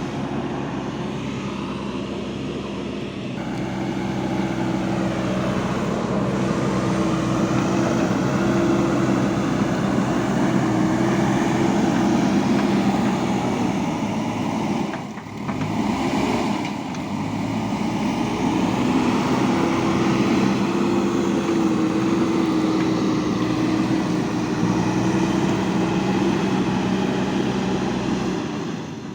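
JCB 3DX backhoe loader's diesel engine running under load. It rises a few seconds in, drops briefly about halfway through, then picks up again.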